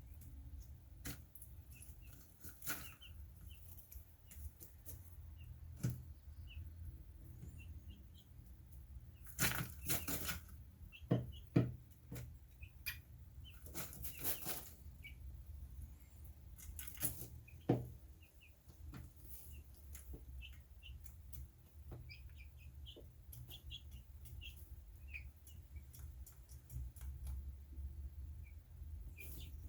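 A small pet breathing with faint, repeated squeaks and clicks, and a few short, sharp sneezes near the middle. Two longer bursts of rustling noise come about a third and halfway through.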